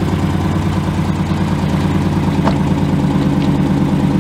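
392 Hemi (6.4-litre V8) exhaust idling steadily with an even, pulsing beat; no revving.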